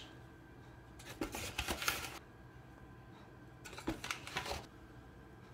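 Metal spoon lightly clicking and scraping as tablespoons of cornstarch are scooped and tipped into a saucepan of milk: two short bursts, about a second in and again near four seconds.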